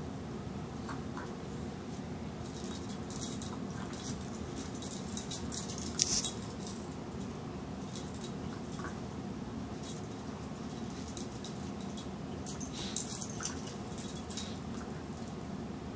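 A schnauzer and a kitten play-fighting on a bed blanket: soft scuffling and rustling, with two spells of light metallic jingling, a few seconds in and again near the end, over a steady low hum.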